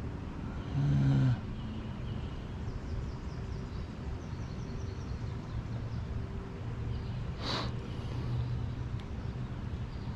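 Outdoor creekside ambience: a steady low rumble with faint, repeated high bird chirps. A short low hum sounds about a second in, the loudest thing, and a single sharp tick comes near the middle.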